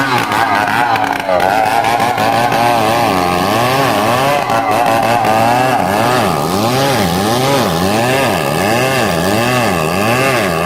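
Chainsaw running under load, cutting into a large tree trunk. From about halfway through, its engine pitch rises and falls in a steady rhythm, roughly every three-quarters of a second, as the saw is worked back and forth in the cut.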